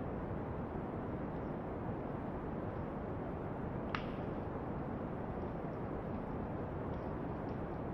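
Steady brown noise, a deep, even rushing hiss, with soft campfire crackles scattered through it and one sharper pop about four seconds in.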